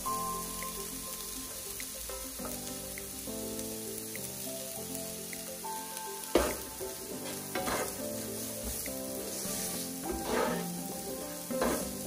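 Diced onion and garlic sizzling in hot oil in a frying pan. From about six seconds in, a wooden spatula scrapes and stirs them around the pan. Soft background music plays underneath.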